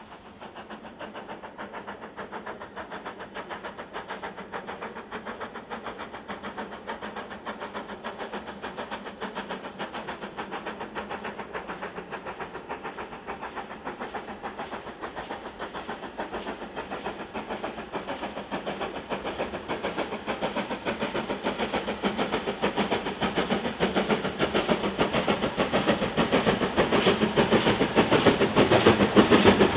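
Steam locomotive working a train with a rapid, even exhaust beat, growing steadily louder as it approaches.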